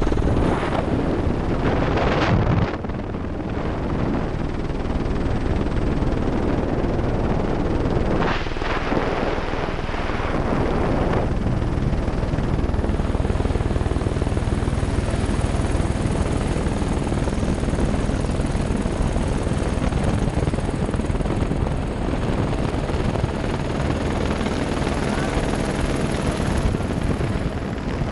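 Helicopter rotor and turbine noise heard from the open cabin door, mixed with rushing wind. The noise swells in louder gusts about a second in and again about eight to eleven seconds in.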